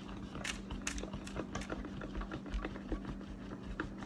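Irregular soft taps and knocks of hands rolling and squishing Tootsie Roll candy on a tabletop, over a steady low hum.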